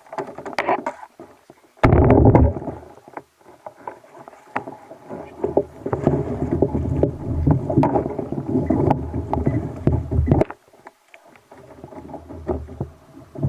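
Sounds of a fishing kayak on the sea: water against the hull and irregular knocks from the boat, with a loud rush about two seconds in.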